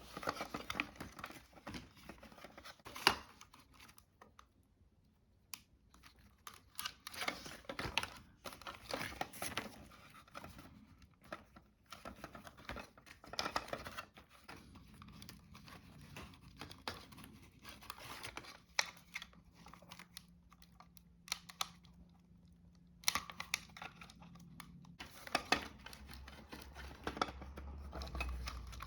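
Hands working on small plastic parts: scattered clicks, light knocks and crinkling, rustling scrapes at irregular intervals. A faint low hum comes in for a few seconds past the middle, and a low rumble near the end.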